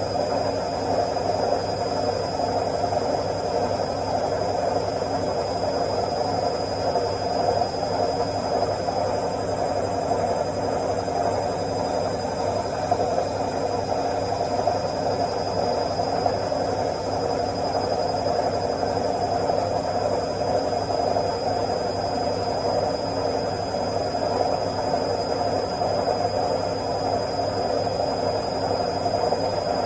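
Washing machine running steadily in its spin cycle: an even whirring hum with a faint, constant high-pitched whine over it.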